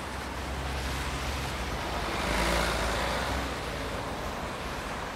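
Road traffic: a vehicle passes close by with a low engine rumble and a rush of tyre and air noise that swells to a peak about two and a half seconds in, then fades.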